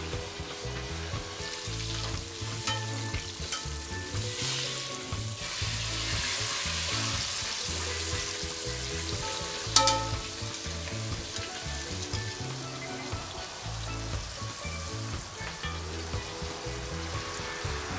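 Hot oil sizzling steadily in a pot as pieces deep-fry over a gas burner, with a utensil stirring through them. A single sharp knock about ten seconds in is the loudest moment.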